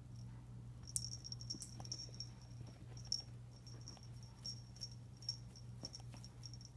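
A kitten tussling with a stuffed toy dog: a run of quick small jingles and rattling clicks, starting about a second in.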